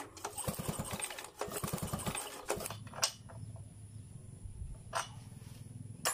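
A wrench working at the top of a stripped-down Stihl 070 chainsaw's cylinder: two quick runs of rapid metallic rattling clicks in the first couple of seconds, then a few single clicks.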